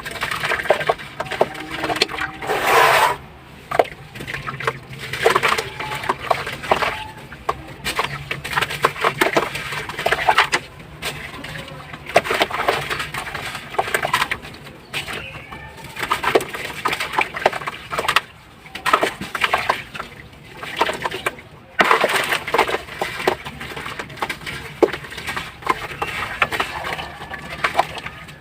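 Dry powdery slabs crumbling in water, a dense crackling and crunching that comes in bursts of a few seconds with short lulls between.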